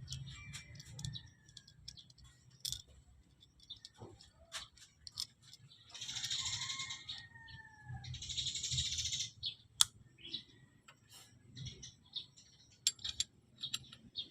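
Scattered light clicks and clinks of metal parts and hand tools being handled during a manual gearbox overhaul, with two hissing bursts of about a second each near the middle.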